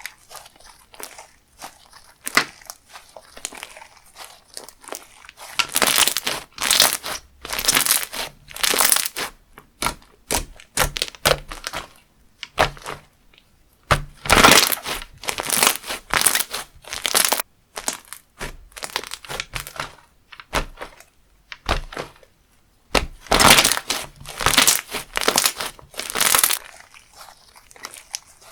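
Crunchy slime being squeezed and pressed by hand, giving dense crackling and popping in three bouts, with scattered small clicks between them.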